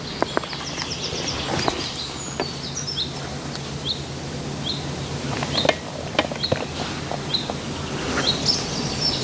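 Birdsong: a bird repeats a short, high chirp about once every three-quarters of a second, with quicker trilling song near the start and again near the end, over a steady low hum.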